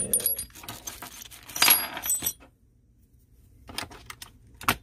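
Steel pin punches clinking together in their box as one is picked out, a run of sharp clicks with short high metallic rings. After a brief pause, a few more sharp metal clicks near the end as a punch is set against the staple gun's pivot pin.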